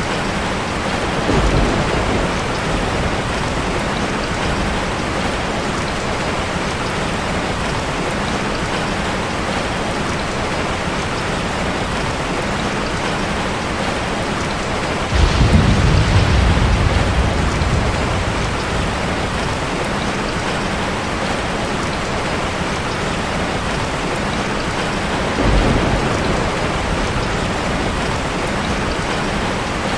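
Steady rain falling, with low rumbles of thunder three times: brief ones near the start and near the end, and a longer, louder one about halfway through.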